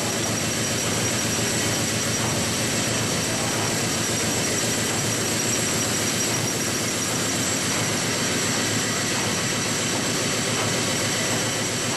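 Liberty ship's triple-expansion reciprocating steam engine running steadily under way, heard as engine-room machinery noise that fills the whole range and does not change in level, with faint high whining tones above it.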